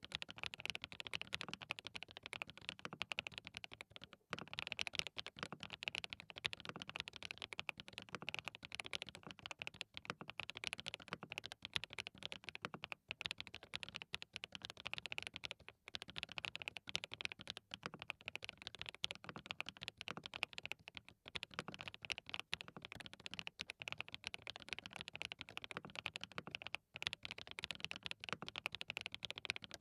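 Continuous fast typing on a DT35 87-key custom mechanical keyboard fitted with hand-lubed SWK Jieum V2 linear switches: a dense, even stream of key clacks.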